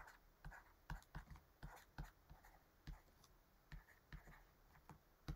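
Stylus tapping on a pen tablet while handwriting: a dozen or so faint, irregular clicks as words are written out.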